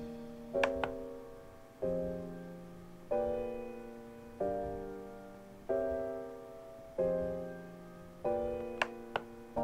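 Slow piano background music, with a new note or chord about every 1.3 seconds. Over it come a few short clicks from the keyboard's rotary knob being worked: two near the start and two near the end.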